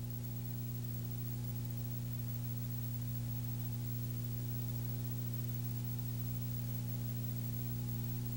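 Steady low electrical hum, several even tones stacked over a constant hiss, with no speech: the noise floor of an old videotape recording.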